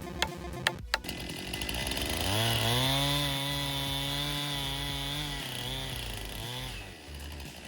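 Gasoline chainsaw revving up to speed, running steadily at high revs for about three seconds, then winding back down. Ticking music plays over the first second.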